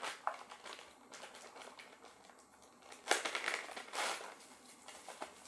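Small clear plastic bag crinkling as it is handled, with a dense run of crackles about three seconds in and faint rustling and ticks before and after it.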